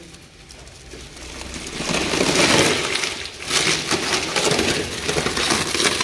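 Plastic stretch wrap crackling and tearing as hands pull it open on a glass panel. The crackle starts about two seconds in and carries on after a quieter start.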